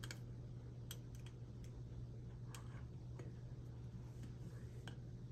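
Faint, irregular clicks of a metal whip-finish tool being worked around thread at a fly-tying vise, over a steady low hum.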